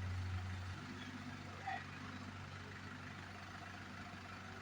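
Diesel engine running steadily at low revs, a low hum that is a little louder for the first second or so.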